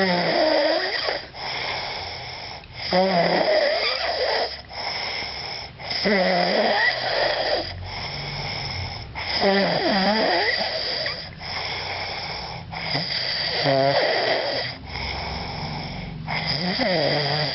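Loud, steady snoring by someone sleeping, one snore every three seconds or so, six in all.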